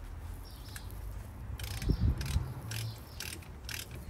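Ratchet wrench clicking as the brake caliper's 14 mm bottom bolt is run in, a run of irregular sharp clicks starting about a second and a half in, with a dull knock around two seconds.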